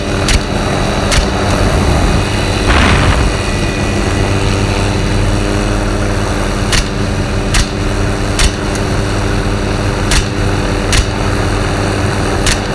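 Light turbine helicopter running steadily, the engine and rotor giving a constant droning hum. About eight sharp cracks, typical of semi-automatic AR-15 rifle shots fired from the helicopter, come one after another, most of them in the second half.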